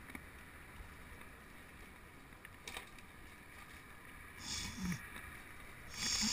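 Mountain bike rolling over a dirt trail, with steady tyre and wind noise and a single click about two and a half seconds in. Near the end come two short hissing bursts as the tyres reach the wet, puddled part of the track.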